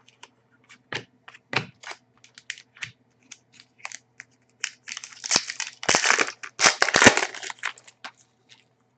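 Trading cards handled by hand: light flicks and clicks as cards are flipped, then a louder stretch of crinkling and rustling from about five seconds in until past seven seconds as stuck-together cards are pulled apart.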